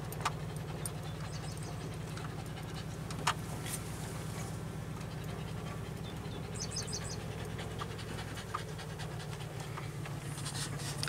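A dog panting close by, over the low steady hum of a car rolling slowly. A few sharp clicks, one louder about three seconds in.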